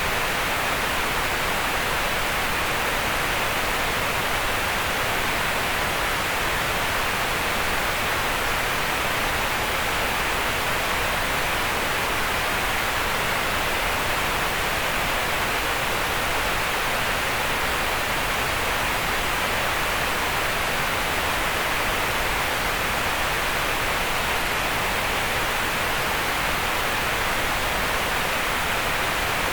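Steady synthetic green noise: an even, unbroken hiss centred in the midrange, with less energy in the bass and the high treble.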